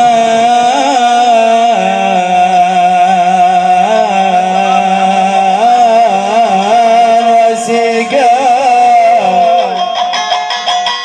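Middle Eastern instrumental interlude in a mawwal: a sustained, ornamented melody wavers over a steady held tone. Close to the end it changes to quick plucked-string notes.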